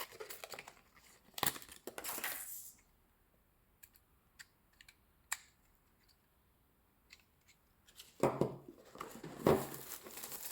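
Dashcam packaging being handled: crinkling and tearing of wrapping, then a few seconds of near quiet with light clicks and taps, and the rustling starts again near the end.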